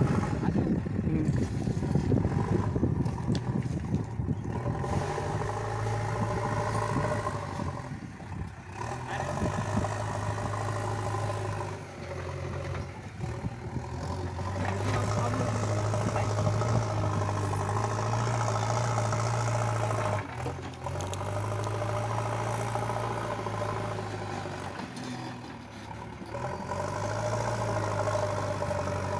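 JCB backhoe loader's diesel engine running under working load, its note dipping and rising again several times as the load on it changes.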